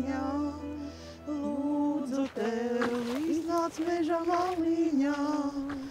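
Two women singing a Latvian folk song about the cranberry, in long held, slightly wavering notes with short breaks between phrases.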